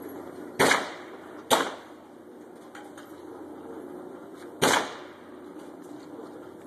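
Three shotgun shots: two about a second apart, then a third about three seconds later, each a sharp crack with a short echoing tail.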